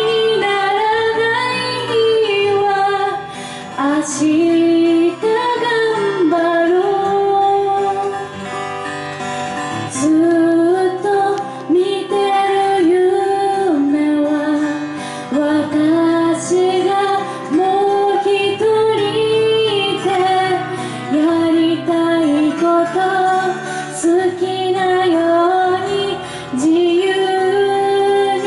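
A woman singing a Japanese pop ballad into a microphone, accompanying herself on acoustic guitar, in sung phrases with long held notes.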